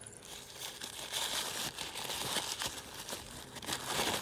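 Plastic toy blind-bag packaging crinkling and crackling as it is handled and opened, a dense run of small crackles.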